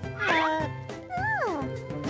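Cartoon character's wordless vocal sounds: two sing-song utterances that slide in pitch, the first falling, the second rising then falling, over background music.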